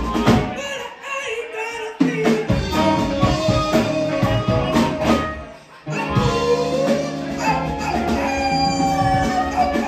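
Live blues band playing: amplified harmonica holding long notes over electric guitar, upright bass and drums, with a woman singing. The band stops short twice, about a second in and again near the middle, then comes back in hard each time.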